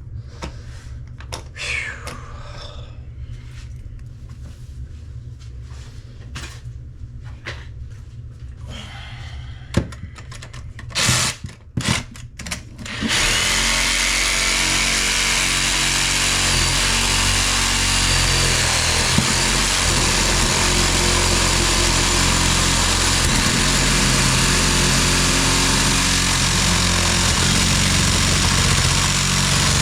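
A few scattered knocks and clicks, then about 13 seconds in a power saw starts and runs steadily, cutting off a rusted faucet mounting nut that will not come loose.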